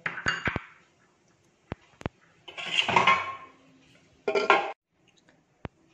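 Pressure cooker lid being handled and fitted onto the metal cooker pot: sharp clinks and knocks of metal on metal, with a longer scraping rattle in the middle and another short one about four and a half seconds in.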